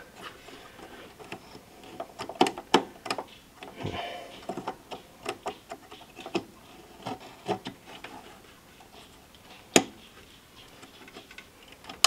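Light plastic clicks and taps as fingers press down on DDR4 RAM sticks and their one-sided retention clips in a motherboard's memory slots, with one sharper click about ten seconds in.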